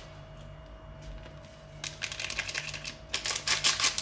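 Hands working cornstarch into soft margarine dough in a stainless-steel bowl: quiet at first, then two short spells of quick crackling, rustling strokes, one about halfway through and one near the end.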